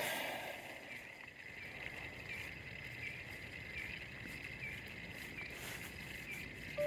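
Steady high-pitched insect chorus, with a chirp repeating about every three-quarters of a second. Music comes in at the very end.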